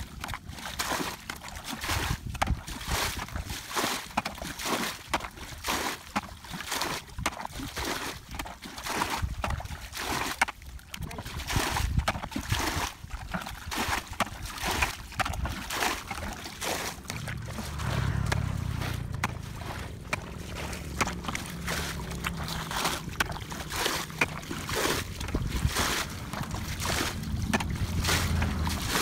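Irregular splashing and sloshing in shallow muddy water, many small splashes in quick succession, with a low steady rumble coming in a little past halfway.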